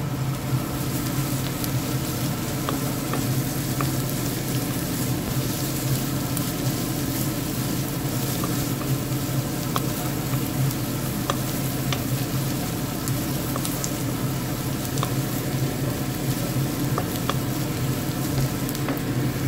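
Onion, garlic, ginger and curry leaves sizzling in hot oil in a non-stick pan while being stirred with a wooden spatula, with light scattered clicks from the spatula on the pan. A steady low hum runs underneath.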